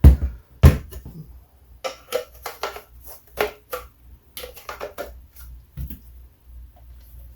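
Hand-handling of a DeWalt compact blower and its hard plastic parts: two sharp knocks near the start, then a string of irregular clicks and taps.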